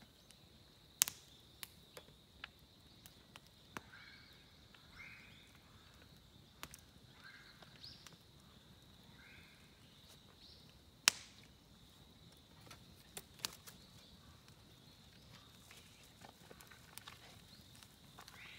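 Quiet campsite ambience: a faint steady high tone throughout, a few short chirping sounds, and scattered sharp clicks, two of them loud, about a second in and near the middle.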